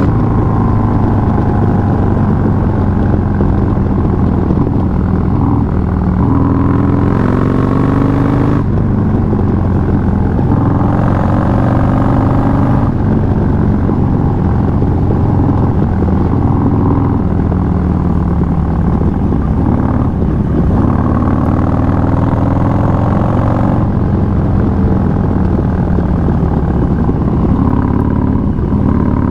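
Harley-Davidson Low Rider S with a 131 cubic inch Milwaukee-Eight V-twin, S&S 550 cams and S&S Super Street 2-into-1 race-only exhaust, riding under way. The engine's pitch climbs and drops again and again as it accelerates, shifts gears and backs off.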